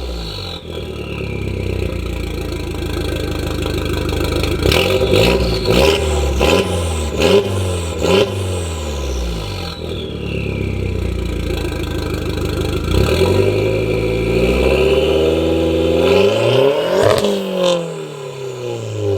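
2002 Volkswagen Golf 337's 1.8-litre turbocharged four-cylinder engine, breathing through a 3-inch turbo-back exhaust with no resonator, being revved in place. There is a run of quick throttle blips from about five seconds in, then it settles back, then one longer rev climbs to a peak near the end and drops back toward idle.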